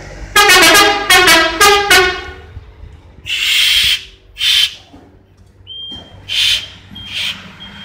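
Vehicle air horn sounding a quick series of about six short, loud blasts, rich in overtones, in the first two seconds. Bursts of compressed air hissing follow, one long and several short, and a thin steady high tone sets in about six seconds in.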